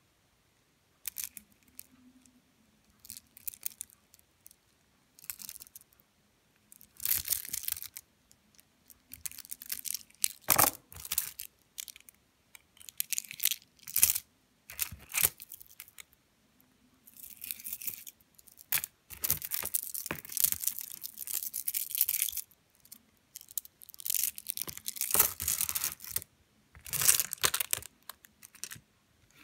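Polished stone beads and cabochons clicking and rattling against each other as fingers handle and shuffle them, with rubbing on a leather surface. The sound comes in short irregular spells with quiet gaps between them.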